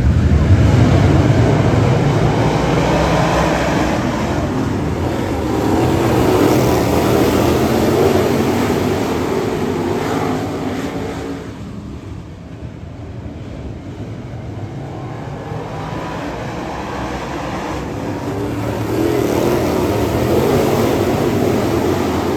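Dirt late model race car V8 engines running laps on a dirt oval, rising and falling as the cars pass, fading for a few seconds past the middle, then building again near the end.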